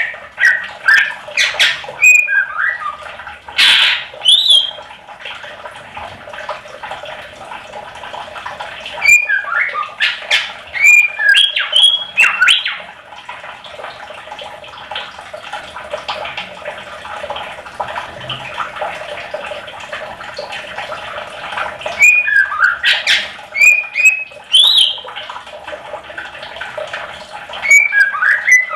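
Green leafbird (cucak ijo) calling in clusters of sharp chirps and quick sliding notes, each cluster a few seconds long, with pauses between. There are four clusters, and a steady rushing hiss runs underneath.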